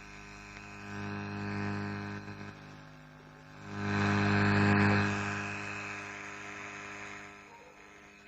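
Mains hum from the speaker of a homemade 12-volt amplifier board that has just been powered up, before any music is played. It is a steady buzzing hum that swells louder twice, strongest about four to five seconds in, then fades back.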